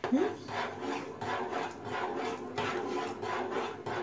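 A spoon stirring thick vegetable cream in a pot, scraping round the pot in repeated strokes, about three a second.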